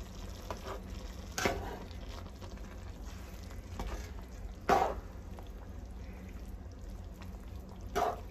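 Ground beef frying in its rendered grease in a skillet, a steady sizzle, with a metal spatula stirring and knocking against the pan a few times, the loudest knock about halfway through.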